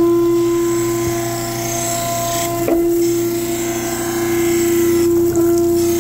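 Surface grinder running a flood-coolant grinding pass on a hollow 18-inch prism straightedge: a steady machine tone over the hiss and splash of coolant, with brief shifts in the sound about halfway through and again near the end.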